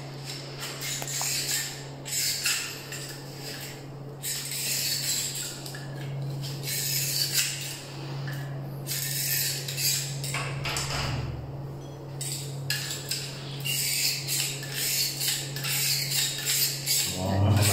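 Irregular scraping, rattling and clicking of metal on an aluminium window frame as hand tools work it, over a steady low hum. The scraping keeps stopping and starting.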